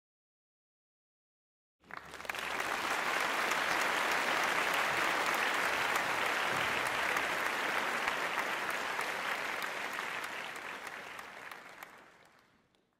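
Audience applauding: after about two seconds of silence the clapping starts suddenly, holds steady, and fades away near the end.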